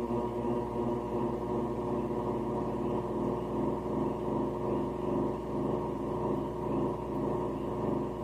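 Homemade six-voice pocket drone synthesizer, its square-wave oscillators mixed through XOR gates, holding a buzzy sustained drone of several steady pitches. The voices beat against each other in a wavering, pulsing texture.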